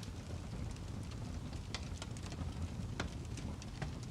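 Wood fire crackling in a fireplace: a steady low rumble of burning with scattered sharp pops and snaps, a few louder ones about two, three and nearly four seconds in.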